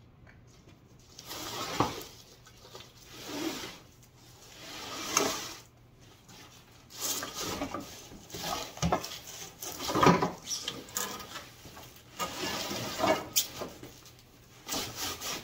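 A large cardboard box being turned and dragged across a wooden table-top, then the folded grooming table sliding out of it: cardboard scraping and rubbing in repeated swells, with a few knocks, the loudest about ten seconds in.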